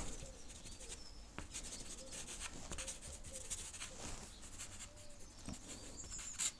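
Unison soft pastel stick scumbled across paper painted with acrylic inks: faint, repeated scratchy rubbing strokes.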